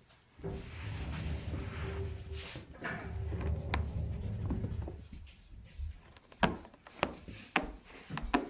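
Cats moving in and against a new cat box and basket: a low scraping rumble for about four and a half seconds, then four sharp knocks near the end.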